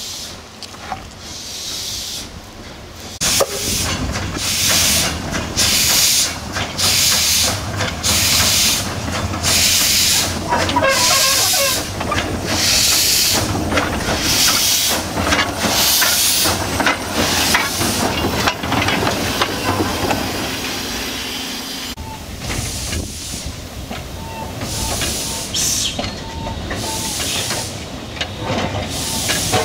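Small narrow-gauge steam locomotive setting off, with steam hissing from its open cylinder drain cocks. From about three seconds in its exhaust chuffs at roughly one beat a second, and the chuffs grow softer in the last third as it moves away.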